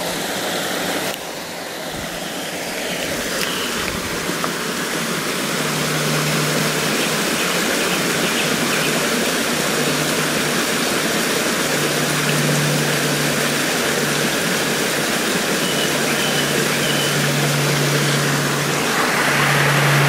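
A small woodland brook babbling over mossy rocks and little cascades: a steady rush of running water that grows louder over the first few seconds. A low hum comes and goes in the background.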